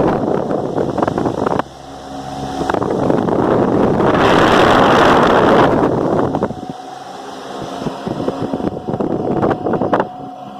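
Ventisol 60 cm 200 W wall fan running. Its airflow rushes loudly over the microphone in two long surges. In the quieter stretches between them, the motor's steady hum comes through, and a single sharp tick sounds near the end.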